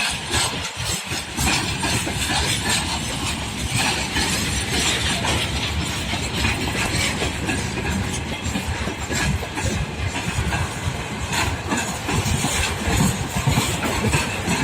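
Freight train rolling past at speed, a steady rumble with rapid clatter of wheels over the rails.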